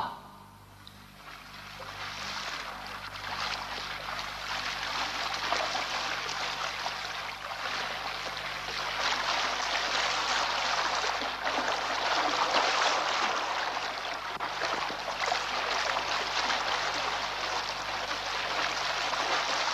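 Water rushing and splashing against a boat's hull, fading in over the first two seconds and then steady. A brief sharp click at the very start is the loudest moment.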